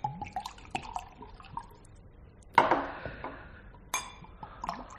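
Drink poured into a glass, with small clinks of glassware and a sharp ringing glass chink about four seconds in.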